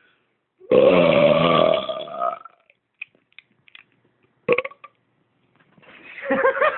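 A long, loud, deliberately forced belch lasting about a second and a half, with a low, pitched, gravelly tone.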